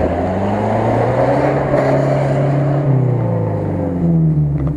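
UAZ-469 off-roader's engine working under load through deep mud, its note rising and falling with the throttle; it dips about three seconds in and climbs again near the end.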